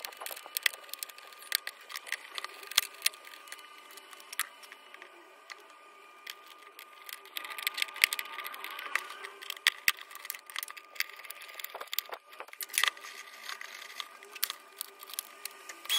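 Small sharp clicks and taps of metal latch hardware and screws handled against a wooden box, busiest a little past halfway through.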